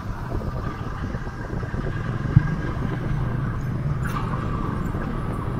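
Hero Xpulse 200's single-cylinder engine running at a steady cruising speed of about 40 km/h, with one short knock about two and a half seconds in.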